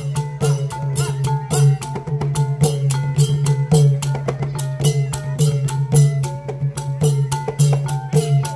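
Cambodian chhay-yam ensemble playing: long chhay-yam drums and small hand cymbals keep a quick, even beat, while a bowed fiddle holds a stepping melody above them.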